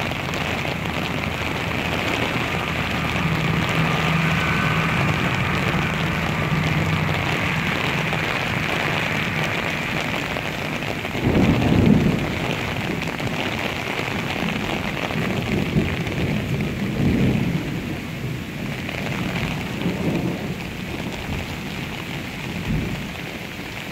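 Heavy rain falling steadily on an umbrella while thunder rumbles: a long low rumble in the first half, a louder peal about eleven seconds in, and a shorter rumble around seventeen seconds.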